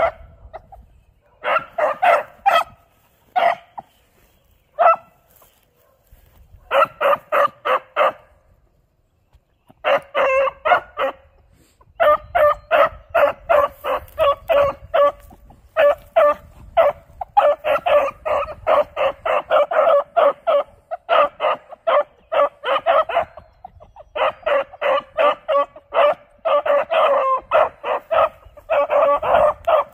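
Two beagle pups giving tongue on a rabbit's scent: high, rapid yips and bawls. They come in a few short bursts with gaps over the first ten seconds, then run on almost without a break at several cries a second.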